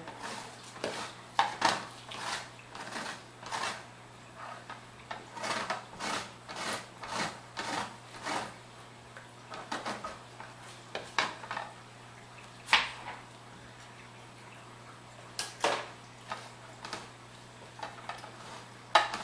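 Irregular light plastic knocks and clicks of a manual food chopper being handled: its red lid lifted off and set back over the bowl of sliced red onion. Quick taps through the first nine seconds or so, then a few louder single knocks, over a steady low hum.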